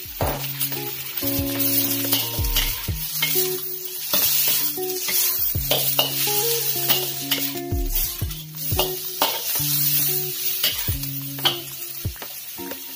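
Greens and galangal shoots stir-frying in hot oil in a steel wok: steady sizzling, with a metal spatula scraping and knocking against the wok many times. Background music with held notes plays underneath.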